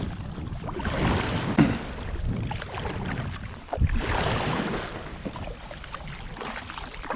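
Seawater splashing and sloshing against a kayak hull in uneven surges, with a sharp knock on the boat about four seconds in.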